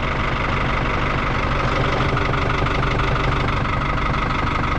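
Diesel farm tractor engine running steadily at low revs while the tractor is backed up to hitch an implement.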